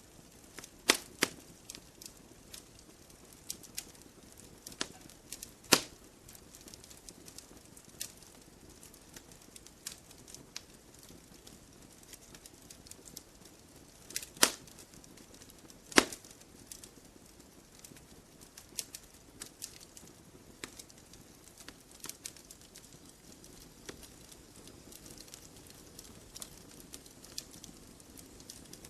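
Campfire crackling: scattered sharp snaps and pops of burning wood over a faint steady hiss, with a handful of louder pops.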